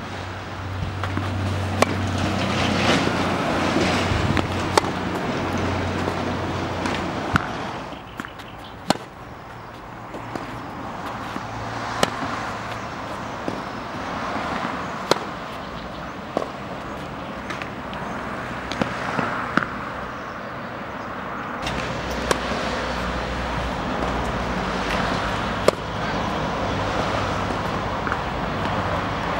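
Tennis ball struck with a racket during a groundstroke rally: single sharp pops every few seconds. They stand over a steady low rumble.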